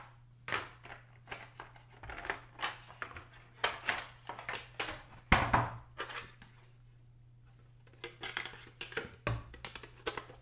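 Clear plastic clamshell packaging and plastic model deck pieces being handled: a string of short crackles, clicks and knocks, the loudest about five seconds in. After a pause of about two seconds there are a few more clicks.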